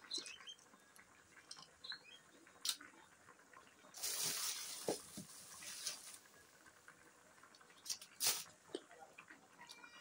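Faint cooking sounds at a wok of jackfruit curry with coconut milk: scattered light clicks and taps of hands and utensils, a rush of liquid noise lasting about two seconds from about four seconds in, and a sharper knock about eight seconds in.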